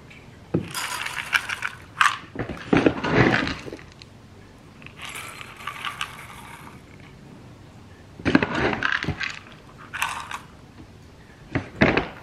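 Dry cat kibble poured from a plastic scoop into ceramic bowls, the hard pellets rattling and clinking against the bowl in several short pours with sharp clicks between them.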